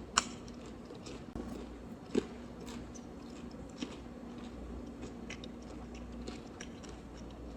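A person eating crunchy fried chicken close to the microphone: a sharp crunchy bite just after the start and another about two seconds in, with faint chewing and small crunches between.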